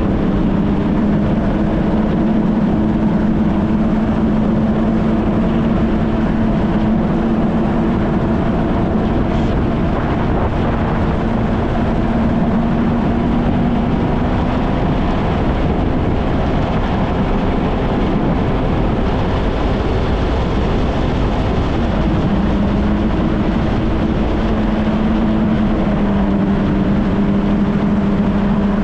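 Kawasaki Ultra 160 LX-S jet ski's naturally aspirated four-cylinder four-stroke engine running steadily under way, with heavy wind and water rush. The engine note wavers and weakens for several seconds midway, then steadies again.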